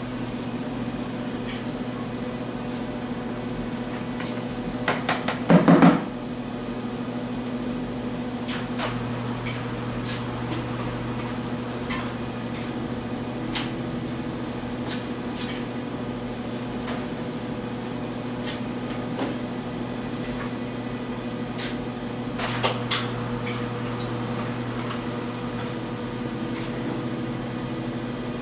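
A steady mechanical hum fills the room. Over it come occasional knocks and clatter from the metal material bins and containers as glaze powders are scooped and weighed, loudest about five to six seconds in, with smaller knocks around the middle and two-thirds of the way through.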